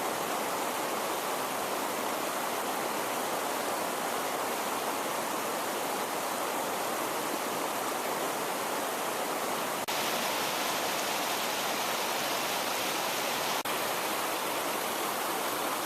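Steady rush of water from a forest creek, with two brief drops, about ten and about thirteen and a half seconds in.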